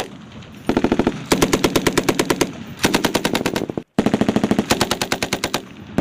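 Belt-fed machine gun firing four short bursts of automatic fire, each about a second long, with brief pauses between them.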